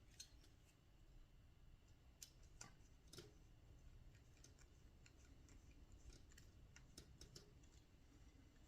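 Near silence with a few faint, scattered small clicks of metal screws and small hand tools being handled while side-frame screws are fitted to a model helicopter frame.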